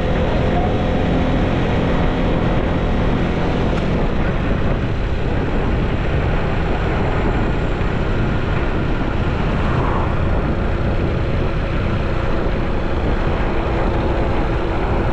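Steady rush of wind buffeting the microphone over the engine and road noise of a moving motorcycle, with a faint steady engine hum underneath.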